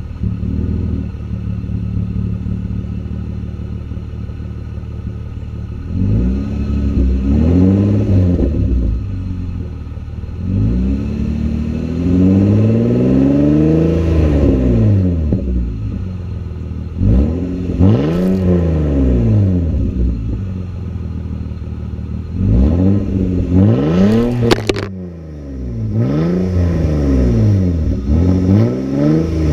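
Nissan Maxima V6 running with its muffler and resonator removed, an open straight-piped exhaust. It idles steadily at first, then is revved again and again, each rev rising and falling in pitch, one of them held longer.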